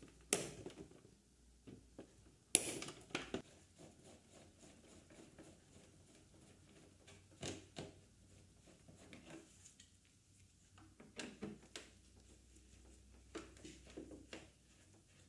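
Scattered clicks and light knocks of hand tools working on a motorcycle's plastic tail fairing, with pliers at a wiring connector and then a screwdriver. The sharpest click comes about two and a half seconds in.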